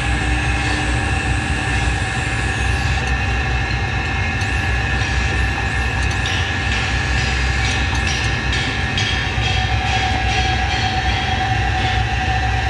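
A machine running steadily: a heavy low rumble with a steady whine over it.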